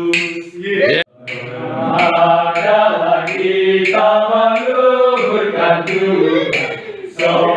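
A group of men singing a hymn together in Indonesian. A long held note breaks off abruptly about a second in, and the singing then resumes with a new phrase.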